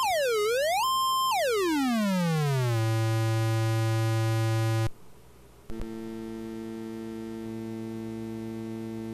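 XR2206 function generator's square-wave output played as an audio tone: a high, buzzy tone dips in pitch and comes back up, then glides down to a low buzz and holds. About five seconds in it cuts out and a quieter, softer low tone of the same pitch comes in as the board is switched back to its sine-wave setting, a rather rough sine.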